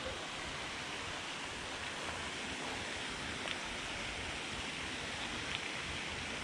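Steady rushing outdoor background noise with no clear events, broken only by a couple of faint clicks.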